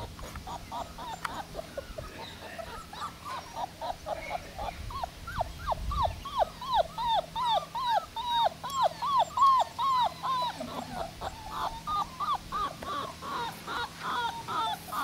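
Puppies whimpering and yipping in a rapid string of short, high calls, about three a second, growing louder about a third of the way in.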